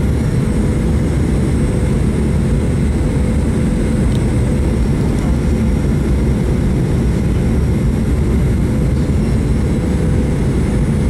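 Cabin noise inside a Boeing 737-900ER in flight: a steady, loud rumble of airflow and its CFM56 jet engines, with a faint steady high whine from the engines.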